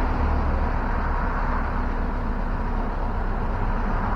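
1961 Land Rover Series II 109-inch station wagon on the move, heard from inside the cab: a steady engine drone with road and tyre noise.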